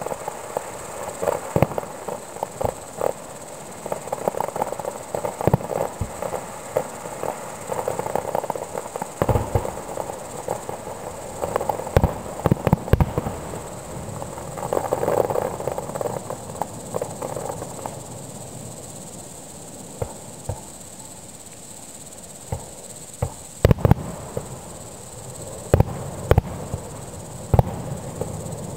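Fireworks display heard from a distance: irregular bangs of shells bursting, some in quick clusters and a few louder ones near the end. Under them runs a steady high chirring of crickets.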